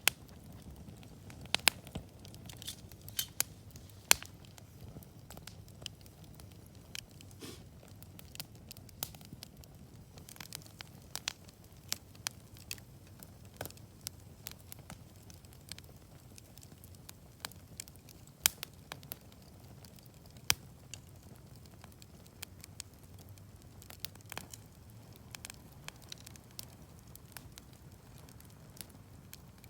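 Wood campfire crackling, with sharp pops at irregular intervals, several loud ones in the first few seconds and one each around 18 and 20 seconds in, over a steady low rumble.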